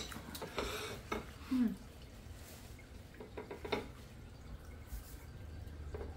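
A few light clinks and taps of cutlery and plates on a counter, most of them in the first second or so and a couple more later, over quiet room tone.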